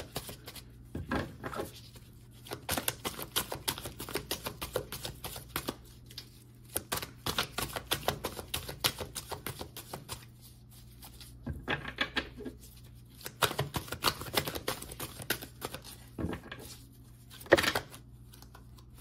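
A deck of tarot cards being shuffled by hand: bouts of rapid light card clicks and flicks with short pauses between them, and one sharper snap near the end as a card comes out of the deck.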